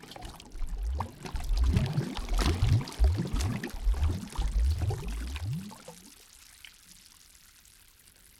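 Lake water gurgling and sloshing in a run of short, rising low glugs. It dies away to a faint trickle about six seconds in.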